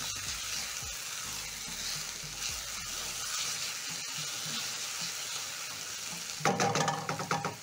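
Sliced capsicum, onion and garlic sizzling steadily in hot oil in a nonstick frying pan as a silicone spatula stirs them, with louder, rapid scraping strokes near the end.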